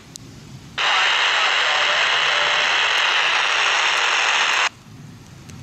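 Railroad scanner radio giving a burst of static hiss, starting suddenly about a second in and cutting off sharply after about four seconds.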